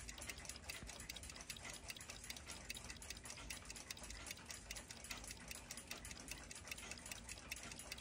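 Mechanical clock ticking faintly, a quick, steady beat of several ticks a second.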